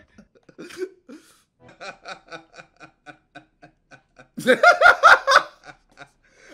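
A man laughing: soft, quick pulses of breathy laughter, then a loud burst of laughter about four and a half seconds in that lasts about a second.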